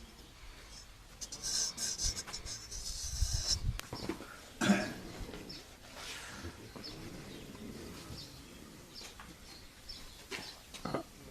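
Straight razor scraping in quick, scratchy strokes for about two seconds, then a single brief louder sound about halfway through, with faint chirps of birds.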